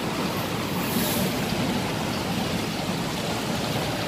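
Steady indoor ambience of a large store: an even rushing hiss and hum with no distinct events.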